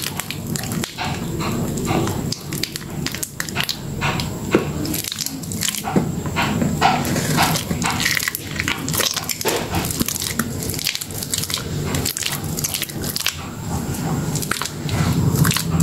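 Soaked green soap squeezed and mashed between lathered hands in a metal bowl: a continuous run of wet squelches and crackling clicks, over a low hum.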